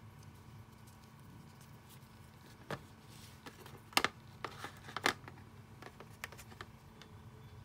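Tabletop handling sounds: a few sharp clicks and knocks, the loudest about four and five seconds in, as a small LiPo battery pack is set down and plastic wire connectors are picked up and handled, over a faint low steady hum.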